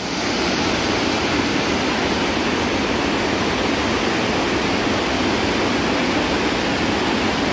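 Water pouring down a small cascade, a steady, loud rush.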